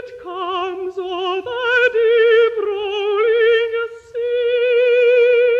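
Contralto voice singing unaccompanied with a wide vibrato, played from a 78 rpm shellac record; a few shorter sung notes, then a long held note from about four seconds in.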